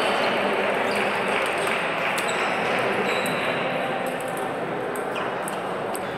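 Scattered sharp clicks of table tennis balls striking tables and bats, irregular and overlapping, over a steady din of an echoing, busy sports hall.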